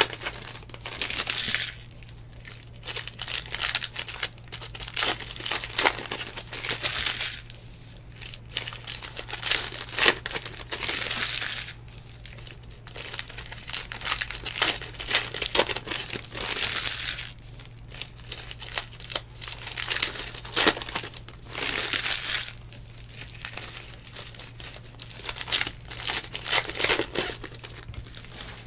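Foil trading-card pack wrappers crinkling in irregular bursts as packs are torn open and handled, over a steady low hum.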